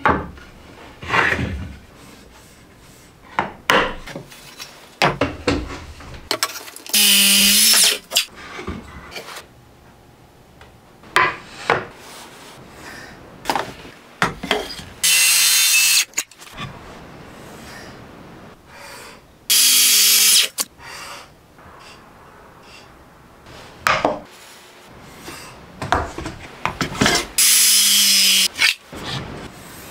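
Circular saw cutting through wood in four short passes of about a second each, with knocks and clatter of boards and saw guides being handled between the cuts.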